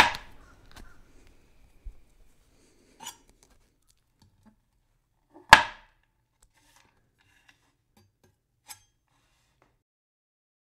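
A few separate sharp knocks, about five of them, the loudest about five and a half seconds in, with near silence between.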